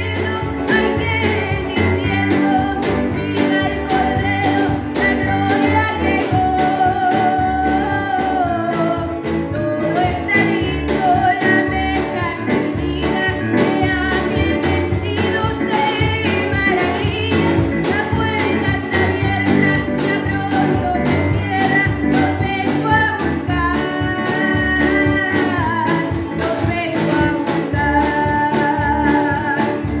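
A woman singing a song in a live performance, accompanied by strummed acoustic guitar and a Korg electronic keyboard.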